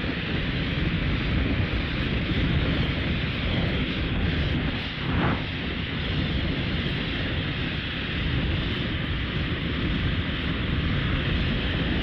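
A sound effect from the Showa-era Gamera films: a steady, loud rushing roar that holds evenly for over ten seconds, with a brief swell about five seconds in.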